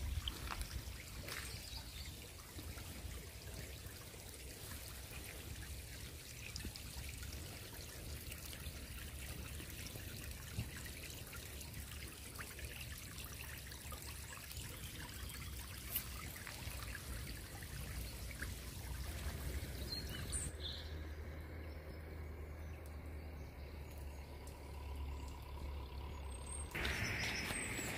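Rainwater trickling in a small runoff channel through grass, under a steady hiss of light drizzle with scattered small taps. The hiss thins out for several seconds near the end.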